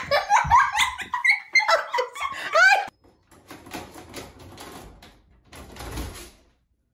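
For the first three seconds, loud high vocal sounds that rise and fall in pitch. Then a run of short, quieter clattering and scraping at a door as a dog works the lever handle from the other side, ending about half a second before the end.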